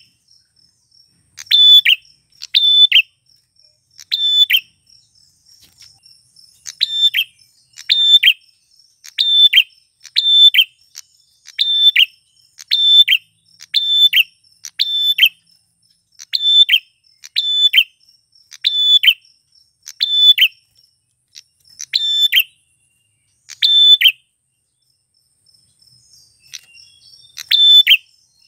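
Male prinia (prenjak) giving its loud, sharp call over and over, the notes mostly in quick pairs about a second apart, with a pause of a few seconds near the end.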